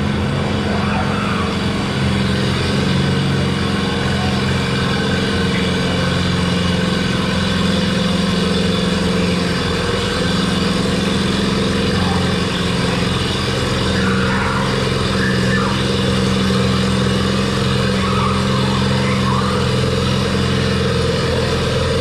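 Antique tractor engine running steadily under load, pulling the weight sled down the track in a tractor pull.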